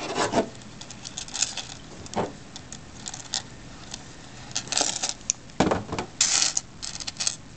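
Galvanised steel chainmail rings clinking and jingling as the mesh is handled and a ring is worked into it with pliers: scattered metallic clicks and short jingles, the loudest jingles about two-thirds of the way in.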